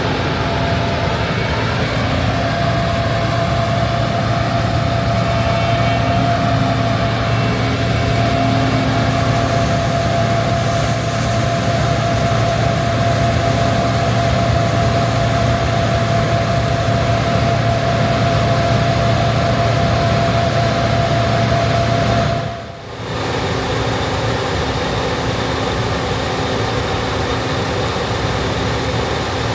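Gleaner R65 combine harvester running steadily: a low engine drone with a steady whine over it. About 23 seconds in the sound drops out for a moment, then comes back with a somewhat different set of steady tones.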